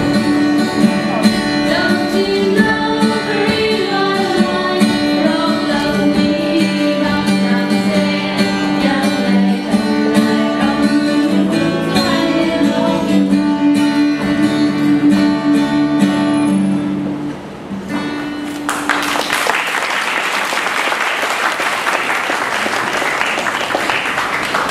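Music with singing plays for a line dance and ends about 17 seconds in; then an audience applauds steadily.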